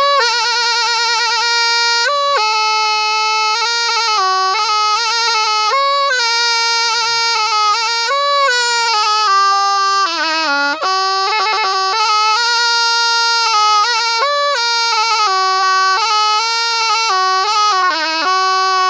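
Thai pi, a double-reed oboe, played solo: an unbroken, ornamented melody with wavering, trilled notes that slide between pitches and a brief low dip about ten seconds in.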